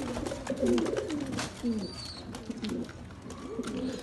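Domestic pigeons in a loft cooing, many low coos overlapping one another, with scattered light clicks.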